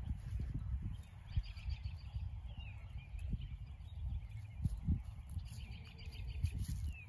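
Small birds chirping, with two short, rapid trills and a few quick down-slurred chirps, over a constant low, uneven rumble.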